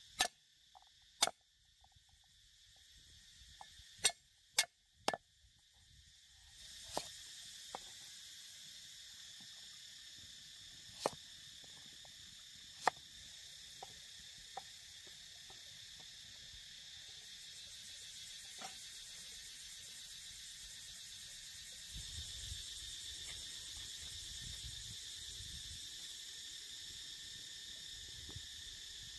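A knife chopping on a wooden cutting board, about five sharp strokes in the first five seconds. Then a steady high chirring of insects, with a few scattered clicks and knocks.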